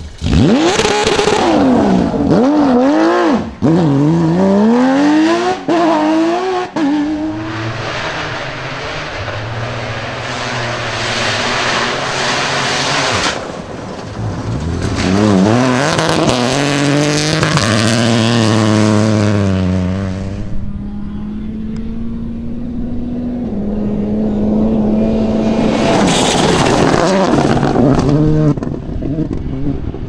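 Rally car engines at full attack, in several clips one after another. A Porsche 911 GT3's flat-six rises and falls sharply through rapid throttle blips and gear changes. After a cut, other rally cars, including an Opel Corsa Rally4, accelerate hard through quick gear changes. Late on, a steadier, more distant engine note is heard.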